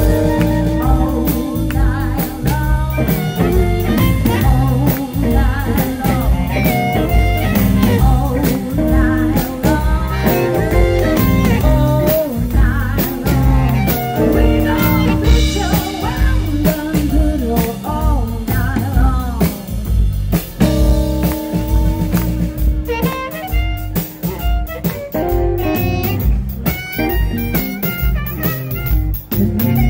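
Live blues band playing: electric bass, drums and keyboard, with amplified harmonica and a woman singing.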